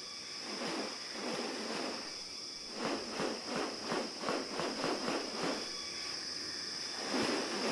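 Rainforest ambience: a steady high-pitched insect drone, with a quick run of rough, noisy pulses, about three or four a second, from about three seconds in.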